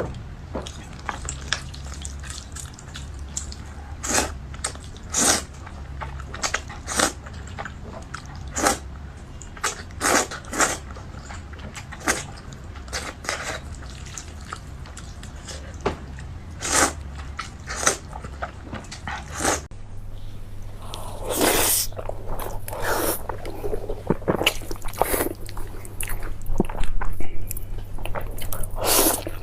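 Close-up eating sounds: a person chewing and biting with many short wet mouth clicks and smacks. About two-thirds through it changes to louder, longer bites.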